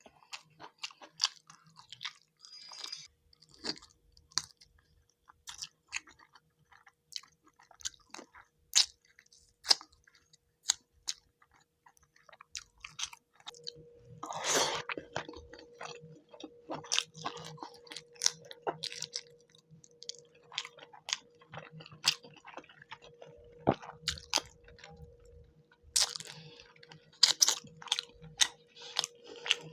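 Close-miked chewing and wet mouth sounds of someone eating fish curry, with many short sharp smacks and clicks. A faint steady hum comes in about halfway through.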